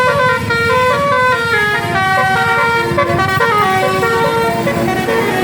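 Bus telolet horn playing a quick melody of stepped notes, several horn tones at once, over the rumble of vehicle and road noise.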